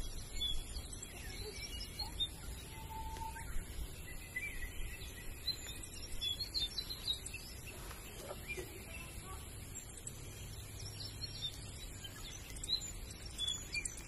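Several birds chirping and calling in short scattered notes, over a steady high-pitched hum and a low rumble of wind on the microphone.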